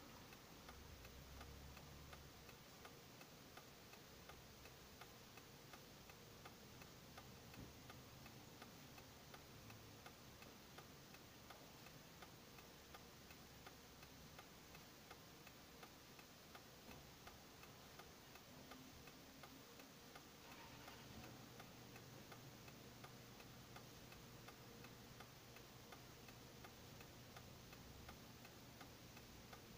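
Faint, steady, evenly spaced ticking inside a parked car's cabin, like a car's indicator flasher clicking. A faint low hum joins about two-thirds of the way through.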